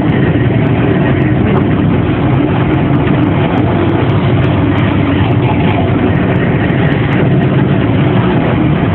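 Grain elevator service elevator climbing its shaft: a steady, loud mechanical rumble and rattle of the car and its drive, without let-up.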